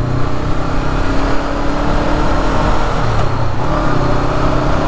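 Honda CB500F's parallel-twin engine running while under way at a steady pace, with wind noise rushing over the microphone. The engine note shifts a little about three and a half seconds in.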